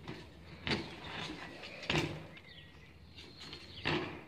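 BMX bike landing hard on pavement: three sharp, clattering thuds one to two seconds apart. Birds chirp faintly in the background.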